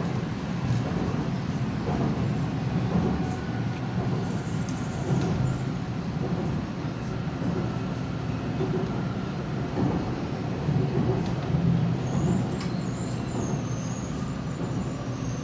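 Inside an LRT-2 electric train car running along the elevated track: a steady rumble of wheels and motors with light rattles and knocks. A faint, wavering high squeal comes in about twelve seconds in.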